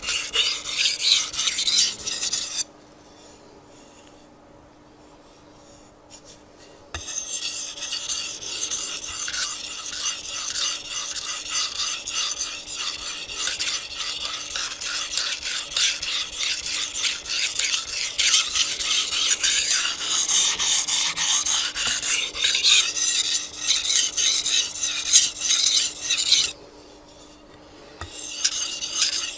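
Japanese chef's knife being stroked back and forth on a wet 800-grit whetstone: continuous gritty scraping strokes while the edge is being set. The strokes stop for about four seconds a few seconds in, and again briefly near the end.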